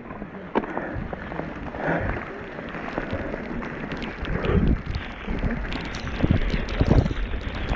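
Mountain bike riding down a wet trail: a steady rush of wind on the microphone and tyre noise, with frequent clicks and knocks from the bike that get busier and louder about halfway through.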